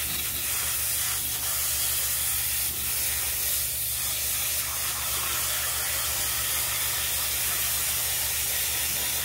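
Garden hose spray nozzle jetting water onto an aquarium filter sponge, a steady hiss of spray rinsing the algae out of the dirty sponge.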